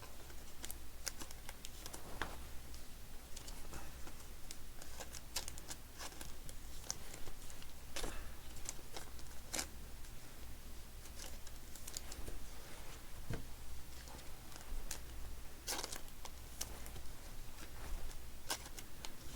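Trading cards being handled and slid into plastic penny sleeves: irregular light clicks, taps and plastic rustles over a steady low hum.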